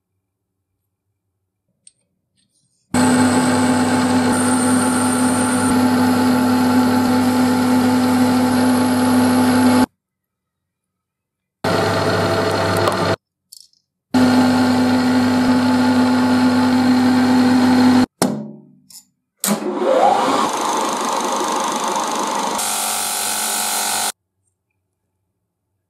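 Metal lathe running with a steady hum while turning a steel screw, heard in several stretches that cut off abruptly. Then a bench grinder's wheel spins up with a rising whine and runs while a screw head is held against it.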